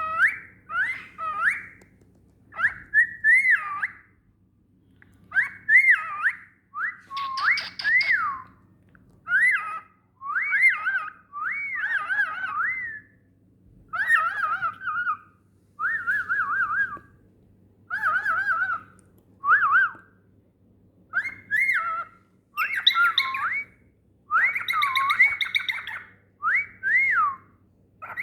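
Cockatiel singing: a string of short whistled phrases that swoop up and down in pitch, in bursts of about a second with brief pauses, with a few harsher chirpy notes near the end.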